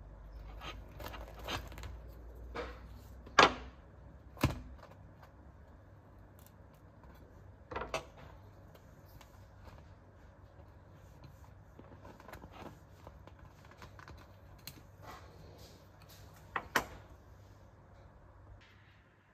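Kitchen handling of a freshly baked crusty ciabatta loaf as it is cut open: scattered crackly clicks and a few sharp knocks, the loudest about three and a half seconds in.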